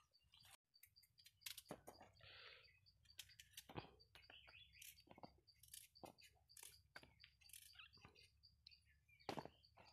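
Near silence, with faint scattered clicks and scrapes from a small knife peeling and slicing raw green mangoes.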